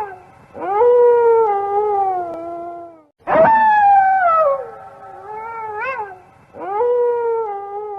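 Wolf howling: three long howls about three seconds apart, each rising quickly and then sliding slowly down in pitch, with short upward-swooping calls between them.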